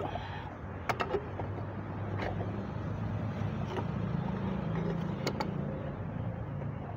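Pipe wrench working a threaded pipe fitting into a water pump's port: a few sharp metal clicks, three close together about a second in and a pair near the five-second mark. Under them runs a steady low mechanical hum.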